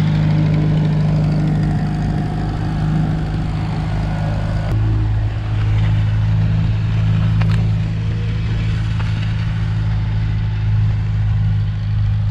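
Farmall 140 tractor's four-cylinder engine running steadily under load as it pulls a single-bottom plow through the soil. The engine note changes about five seconds in.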